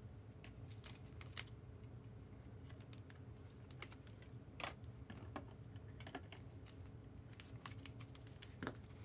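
Trading cards being handled and flipped through by hand: scattered faint clicks and light rustles, with a few sharper ticks among them, over a steady low hum.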